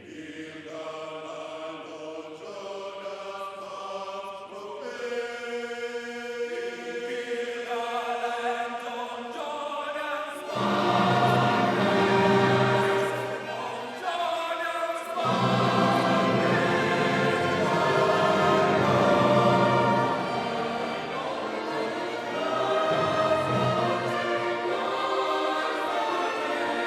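Church choir singing an anthem in parts, softly at first and then markedly louder from about ten seconds in.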